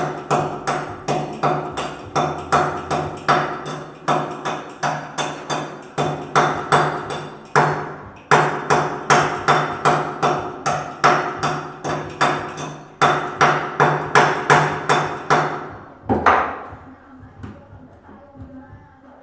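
Rapid, regular hammer blows at the wall opening for an exhaust fan, about three a second, each with a ringing tone. They break off briefly twice and stop near the end with a fading ring.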